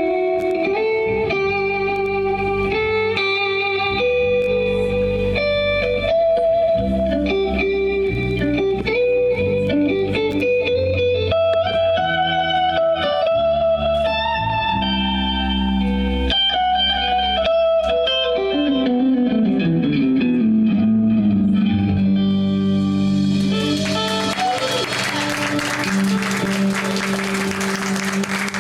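A live band plays a guitar-led instrumental with a bass line underneath. About two-thirds of the way through, a low line slides steadily down in pitch. Over the last few seconds a loud hissing wash builds up under a held chord, and the music cuts off suddenly at the end.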